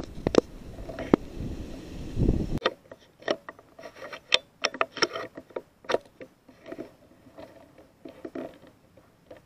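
Low handling rumble with two sharp clicks, then irregular crackling and rustling in dry leaf litter, with many small snaps and scrapes.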